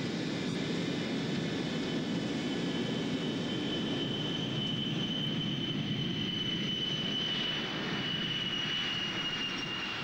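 Ilyushin Il-76 four-engine turbofan jet engines running at takeoff power: a steady deep rushing noise with a high whine on top. The pitch of the whine drops slightly near the end.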